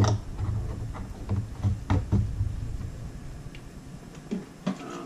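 A few scattered light knocks and clicks of a bottle and containers being handled and set down on a wooden workbench, over a low hum that stops near the end.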